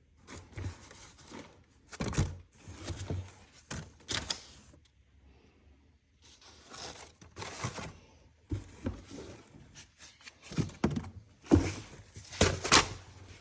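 Irregular handling noises: a run of knocks and thunks mixed with rustling, coming in uneven bursts with short pauses, busiest near the end.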